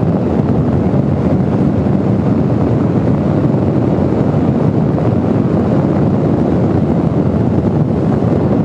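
Steady wind rush on a helmet-mounted microphone while riding, over the running of an Indian Scout Bobber Twenty's V-twin engine.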